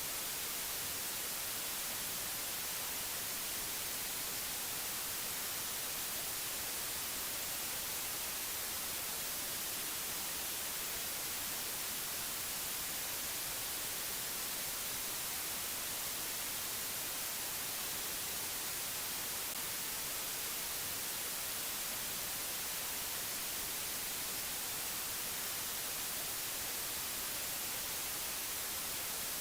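Steady, even hiss of white noise, unchanging throughout, with no tones or separate events.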